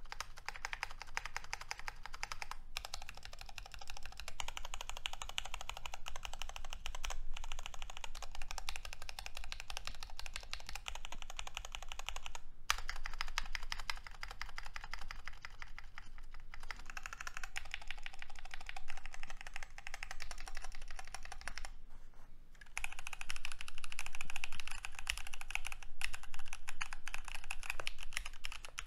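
Typing sound test on an unmodded GMMK Pro mechanical keyboard with Gateron Yellow linear switches, PBT keycaps and the stock aluminium plate: a steady run of fast keystroke clacks with a few brief pauses, louder for the last several seconds.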